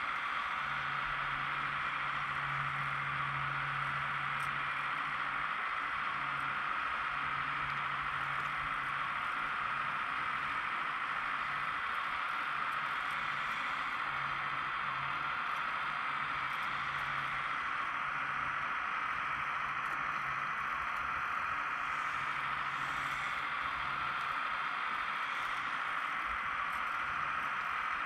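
Radio-controlled hydraulic mini excavator running: a steady hiss from its hydraulic pump, with a low hum that comes and goes while the arm and bucket work.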